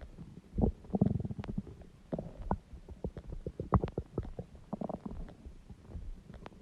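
Human stomach growling and gurgling: an irregular run of short pops and low rumbles, loudest about a second in and again near four seconds.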